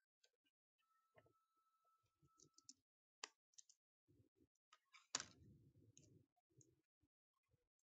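Faint scattered clicks of a computer mouse and keyboard over near silence. The loudest click comes about five seconds in, followed by about a second of low rumble.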